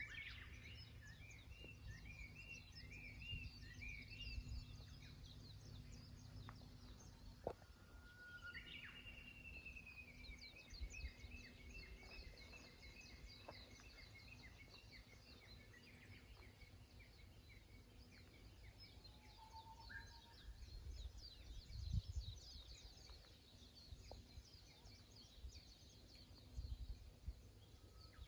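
Faint birdsong from woodland: several small birds chirping and whistling, with one long descending trill of repeated notes a few seconds in. A low rumble runs underneath.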